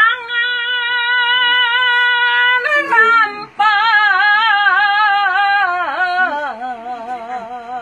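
An elderly woman singing unaccompanied: a long steady high note, a short break about three seconds in, then a wavering held note that slides down to a lower one near the end.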